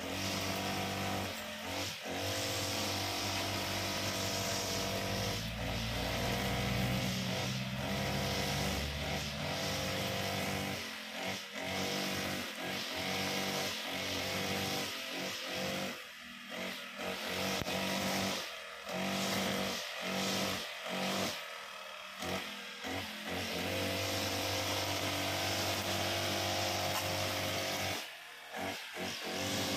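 Honda GX35 four-stroke brush cutter engine running at a steady high speed while cutting grass. Its sound drops away briefly several times midway and once near the end.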